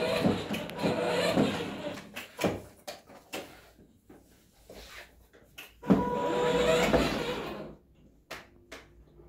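Electric ride-on toy jeep's motors and gearboxes whirring as it drives, with its plastic wheels rolling on the floor; it stops about two seconds in, with a few knocks, and whirs again for about two seconds around six seconds in.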